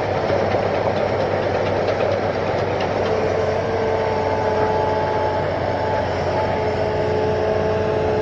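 Diesel engine of a Hitachi Zaxis 210 amphibious excavator running steadily, with a faint whine joining about three seconds in.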